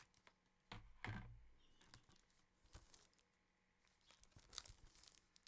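Faint handling noise of a disc case: soft rustles and scattered clicks, the loudest a low bump about a second in.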